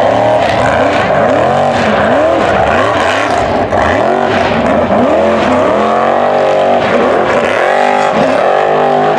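Formula Offroad hill-climb buggy's engine revving hard under load on a steep dirt climb, the revs rising and falling in quick swings about once a second. The revs hold high for a moment about six seconds in, then swing again.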